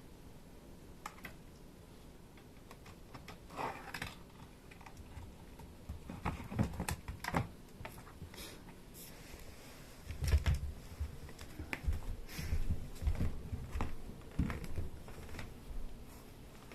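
Kittens moving about on a hard surface: irregular light clicks and taps, with soft thumps gathering from about ten seconds in.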